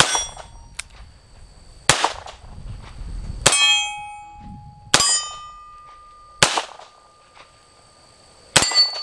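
Taurus Defender 856 .38 Special revolver firing six shots, about one and a half to two seconds apart, several followed by steel targets ringing on a clear tone.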